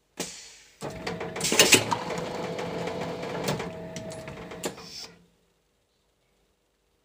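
Plastic bottle blow-moulding machine cycling: a sharp burst, then a few seconds of loud hissing air with clanks and knocks from the mould and clamp, cutting off suddenly about five seconds in.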